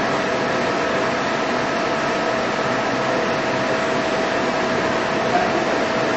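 Steady hum and hiss of running machinery, with one constant whining tone held throughout and no change in pace.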